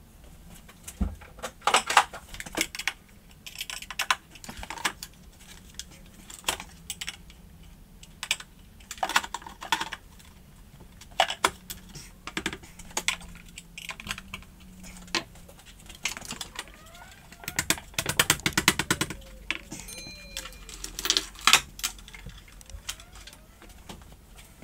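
Cordless drills and plastic battery chargers being handled against a plywood wall rack: irregular clicks and knocks of plastic on wood, with a quick run of rattling clicks about eighteen seconds in.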